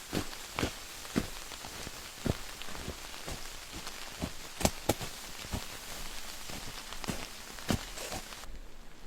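Steady hiss of blizzard wind and blowing snow, with irregular sharp taps and crunches scattered through it, one or two a second. The hiss drops away suddenly near the end.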